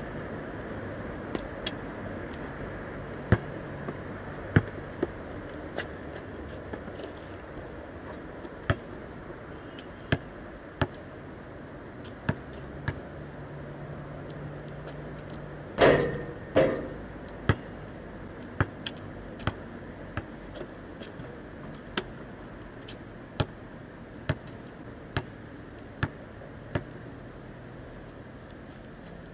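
Basketball bouncing on an asphalt court: a string of sharp single bounces, coming about once a second in the second half, with a louder double impact about halfway through.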